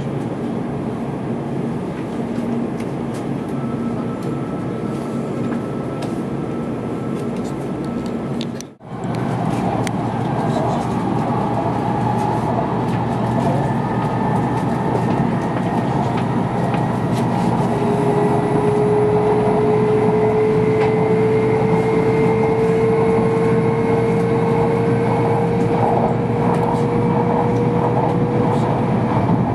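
Cabin noise of an N700-series Shinkansen train pulling out of a station and gathering speed: a steady rumble that cuts out for a moment about nine seconds in. From about two-thirds of the way through, a clear traction-motor whine rises slowly in pitch as the train accelerates.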